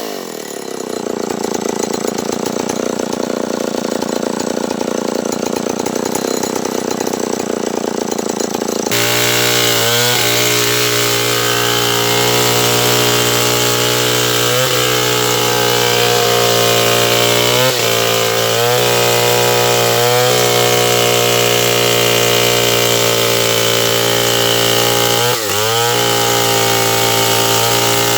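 Stihl 070 two-stroke chainsaw sawing wood. Its engine pitch drops sharply at the start and runs lower for several seconds, then it returns abruptly to a steady high-revving run with brief dips in pitch every few seconds.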